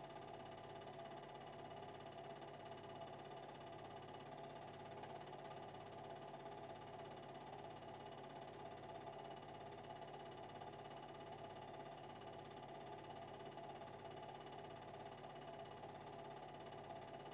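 Faint steady hum made of a few constant tones, unchanging throughout, with no speech or music.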